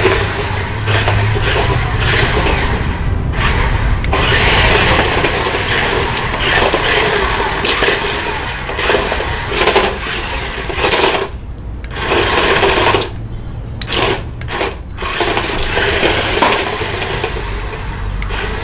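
Remote-control stunt car's electric drive motors whirring and its wheels rattling over concrete as it drives about, stopping briefly a few times in the second half.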